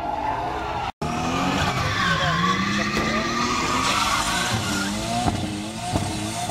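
Car engine revving hard while its tyres squeal, spinning on the asphalt in a smoky burnout/drift. The pitch rises and falls with the throttle. The sound cuts out completely for an instant about a second in.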